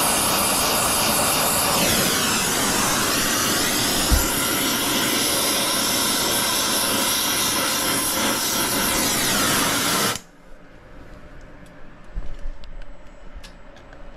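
Acetylene torch flame burning with a loud steady hiss while brazing a copper refrigerant-line joint, cut off suddenly about ten seconds in as the torch is shut off. A few faint clicks follow.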